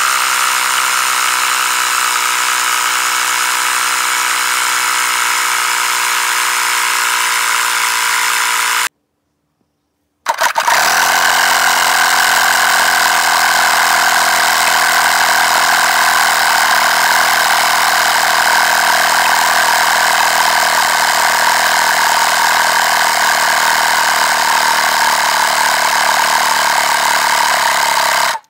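Portable 12-volt tyre inflator, a small electric piston air compressor, running steadily as it pumps up a tyre, its gauge pressure rising. It cuts out about nine seconds in and starts again a second or so later, running on until it stops abruptly near the end.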